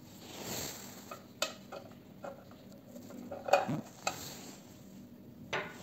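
A sleeve rustling, then a series of light clicks and knocks as parts of a 3nh YS6060 benchtop spectrophotometer are handled. The sharpest click comes about halfway through.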